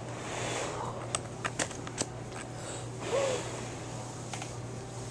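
Scattered light clicks and taps, clustered between one and two and a half seconds in, and a short rising-and-falling vocal sound from a toddler about three seconds in, over a steady low hum.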